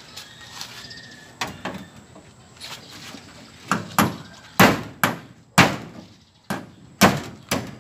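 Hammer driving a nail through a corrugated galvanized iron sheet into a wooden batten: a series of sharp, ringing metal strikes, light at first and then loud, about two a second in the second half.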